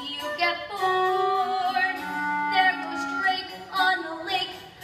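A woman singing a slow melody, holding long notes that waver in pitch.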